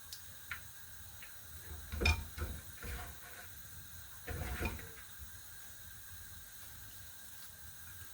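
Brief kitchen handling noises from bowls and utensils: a small click, then a few soft knocks and scrapes about two seconds in and again about four and a half seconds in, over a faint steady background.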